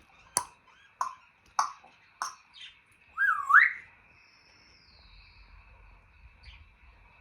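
African grey parrot making four sharp clicks about every half second, then a loud swooping whistle that dips and rises about three seconds in, followed by a faint high whistle.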